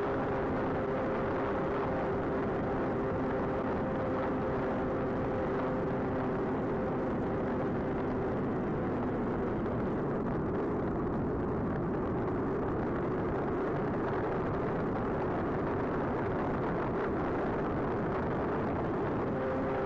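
Onboard audio of an AtomRC Swordfish twin-motor FPV plane in flight: the electric motors and propellers whine steadily over heavy wind rush. The motor tones fade away about eight to ten seconds in as the throttle is pulled back for a dive, leaving mostly wind noise, and return just before the end as power comes back on.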